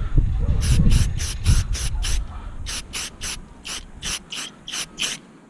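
Rust-Oleum aerosol spray can hissing in short, quick bursts, about four a second, as white primer base coat is dusted onto a part. A low rumble sits under the first two seconds.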